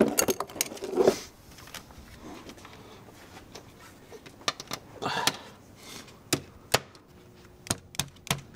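Sharp clicks and knocks of hard plastic as a BMW M52TU's plastic intake manifold is worked back into place by hand, with a longer rubbing scrape about a second in and again about five seconds in. The clicks come more often near the end.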